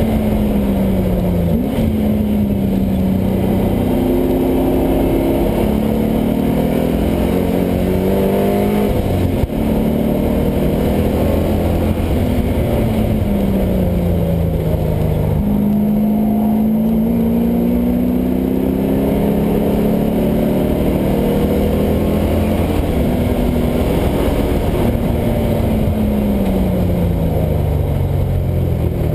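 LS1 V8 engine in a swapped Mazda Miata running hard on track, its pitch climbing under acceleration and falling away several times as it slows for corners, with a sharp break about nine seconds in.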